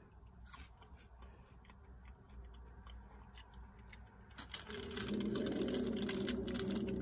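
Small crunching clicks of a roasted cricket being chewed and of a thin plastic snack bag being handled. The clicks grow denser for the last couple of seconds as the bag is crinkled, and a low, steady hum joins them.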